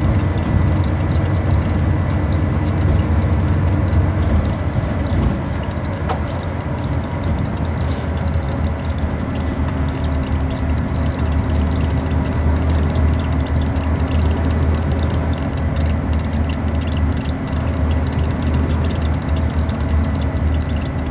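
Scania-engined Alexander Dennis Enviro400 double-decker bus heard from inside the passenger saloon: a steady low engine drone with running noise, dipping briefly about five seconds in.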